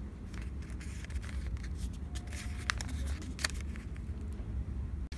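Steady low room hum, with a few light clicks and rustles of handling about halfway through.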